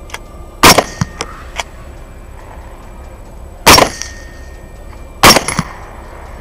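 Three shots from a suppressed LWRC Six8 rifle (6.8 SPC, semi-automatic), about 0.7 s in, then about three seconds later, then a second and a half after that, with a few lighter clicks after the first shot.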